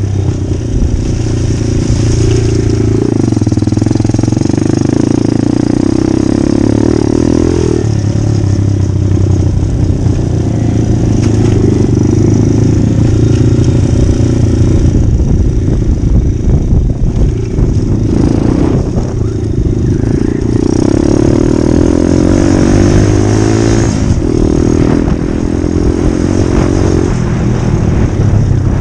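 Pit bike engine running hard under the rider, heard from the saddle, its pitch climbing and dropping again and again as the throttle is opened and closed over the dirt track.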